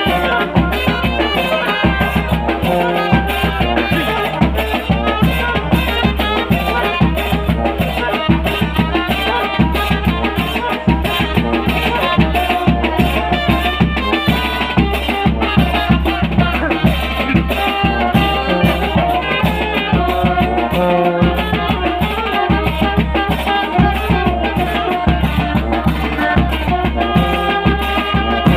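Tanjidor brass band playing: wind instruments carrying a melody over a steady, busy drum beat.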